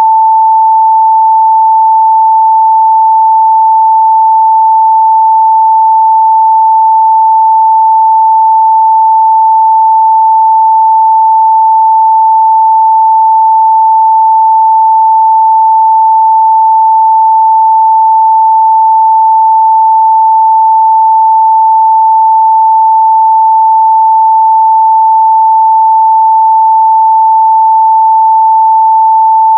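Pure 885 Hz sine test tone, a single steady unwavering pitch held at constant loudness, used to check a speaker's or headphones' midrange response.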